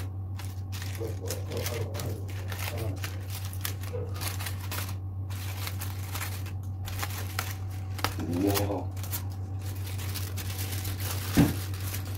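Aluminium foil crinkling and crackling as it is peeled back off a glass baking dish, over a steady low hum.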